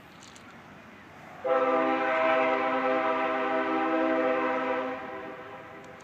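Locomotive air horn sounding one long steady blast, starting about a second and a half in and fading away near the end.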